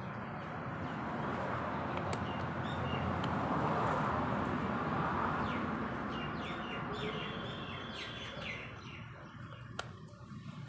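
Small birds chirping over a broad hiss of background noise that swells to its loudest about four seconds in and then fades; a single sharp click near the end.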